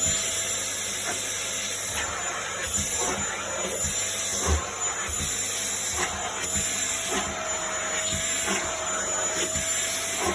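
A small motor running steadily with a hissing whir and a faint held tone, with soft knocks now and then.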